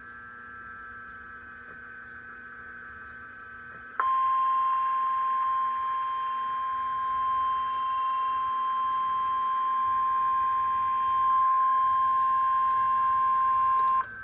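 Faint radio hiss for about four seconds, then the NOAA Weather Radio 1050 Hz warning alarm tone: a single steady tone held for about ten seconds that cuts off abruptly near the end. The tone signals that a warning-level alert is about to be read.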